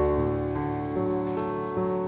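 Soft instrumental background music, a melody of sustained notes that change every half second or so.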